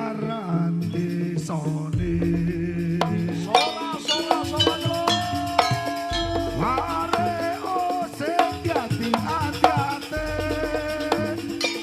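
Jaranan dance accompaniment music: drums and percussion under a wavering, bending melody line and sustained pitched tones.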